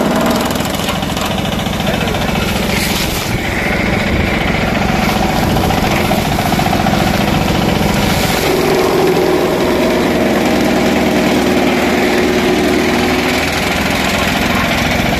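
12 HP DK Champion mini tractor's diesel engine running steadily, driving a chaff cutter through its PTO shaft as the cutter chops and blows dry straw. The machine's note shifts a little past halfway through.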